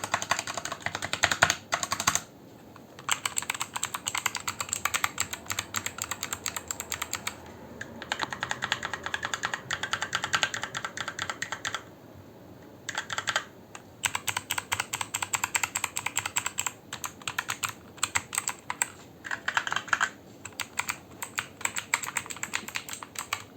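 Typing on a mechanical keyboard: fast runs of clacking keystrokes in bursts of a few seconds, with short pauses between them.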